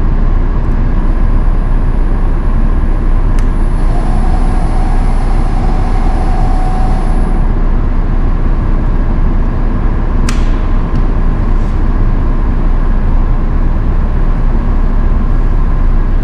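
Steady loud rumble of running machinery with a constant hum. From about four to seven seconds in, a faint steady whine sounds as the CNC saw's head swivels on its rotary axis. A sharp click comes just before the whine, and another about ten seconds in.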